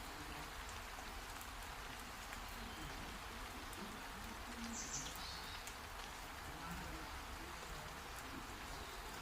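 Heavy rain falling steadily, with a brief high chirp about five seconds in.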